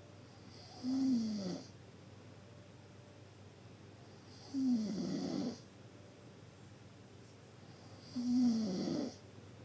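Deep snoring: three snores about three and a half seconds apart, each about a second long, with a pitch that falls through each snore.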